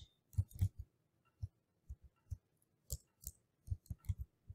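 Typing on a computer keyboard: about a dozen faint, separate key clicks at an uneven pace.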